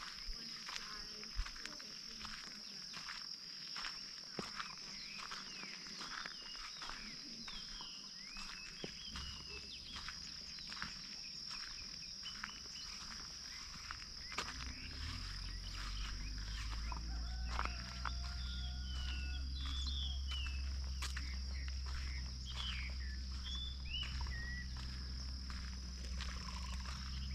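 Outdoor farm ambience: a steady high insect drone with scattered bird chirps and whistles, and soft footsteps. From about halfway, wind rumbles on the microphone and gets louder.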